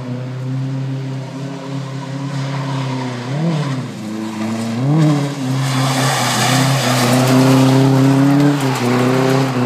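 Nissan 240SX S13's KA24DE four-cylinder engine held at high revs through a drift, with two brief rises and falls in pitch a few seconds in. In the second half a loud hiss of tyres spinning on the wet pavement joins it.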